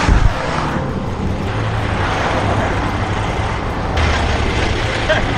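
Roadside traffic passing, with a semi truck's engine idling close by, its low rumble growing louder about four seconds in. A short thump at the very start.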